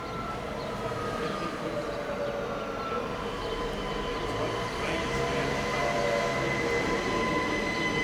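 Train running into the station, growing louder, with a steady high-pitched squeal of wheels or brakes setting in about halfway through.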